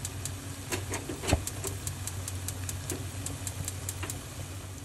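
Steady low hum of a kitchen exhaust fan, with scattered light clicks and crackles from noodles being stirred in a pan with a wooden spatula.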